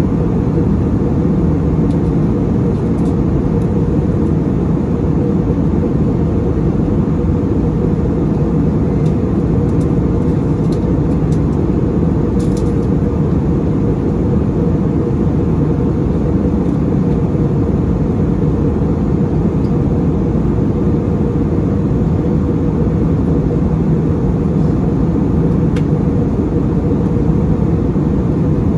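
Steady in-flight cabin noise of an Airbus A320neo heard from a window seat: an unbroken low rumble of engines and airflow, with no change in pitch or level.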